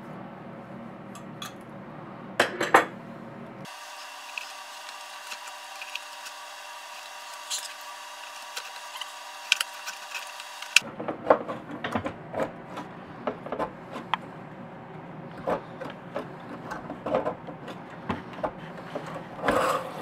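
Hands and pliers working a cleaning brush through a crimped rubber hose in an opened KitchenAid coffee maker base: scattered small clicks, scrapes and light knocks of plastic and metal. For about seven seconds in the middle these give way to a thin steady hum with only faint ticks.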